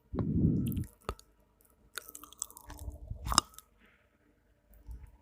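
Clicks, scrapes and crunching of plastic parts being handled as the HP LaserJet 1566's gearbox is unscrewed and opened, with a dull rustle near the start and a sharp click about three and a half seconds in.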